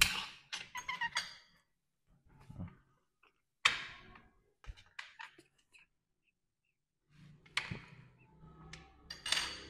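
Metal knife and fork clinking and tapping on small ceramic plates and a bowl as food is cut: a scatter of short, sharp clicks and knocks with pauses between them.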